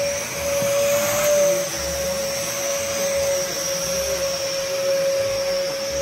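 Vacuum cleaner running with a steady whine; the pitch rises slightly about a second in and drops back.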